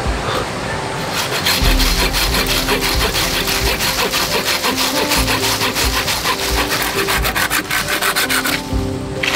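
Hand saw cutting through a dry tree branch with quick, even back-and-forth strokes. The sawing starts about a second in and stops shortly before the end.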